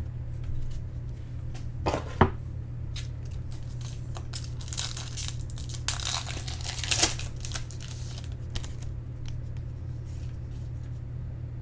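Trading card pack's foil wrapper being torn open and crinkled, with a couple of sharp clicks about two seconds in and the longest stretch of crackling near the middle, over a steady low hum.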